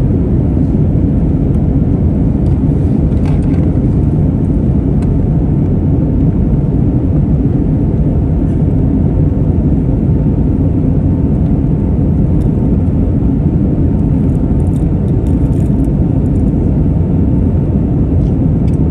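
Steady cabin noise of an Airbus A321neo in its climb after takeoff: the deep, even rumble of its Pratt & Whitney PW1100G geared turbofans and the air rushing past the fuselage, with a faint steady whine above it.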